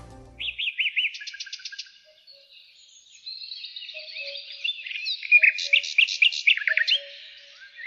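Songbirds chirping and singing, with rapid trills and quick sweeping notes coming in clusters, busiest and loudest in the second half, and fainter low short calls repeating underneath.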